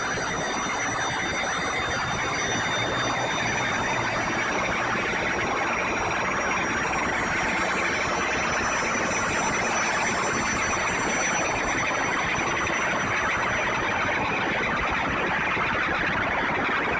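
Electronic noise music played live from a laptop and controller: a dense, steady hiss-like wash in the middle range, with thin sustained high tones above it that slowly fade, swelling gradually in loudness.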